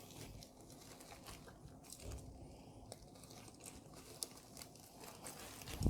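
Faint crinkling and rustling of parcel packaging being opened and handled by hand, with a few soft clicks.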